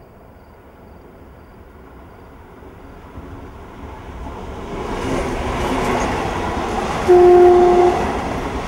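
Train approaching, its running noise growing steadily louder, then a single short horn blast about seven seconds in, lasting under a second.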